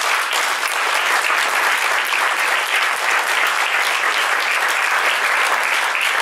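Audience applauding: loud, steady clapping from many hands.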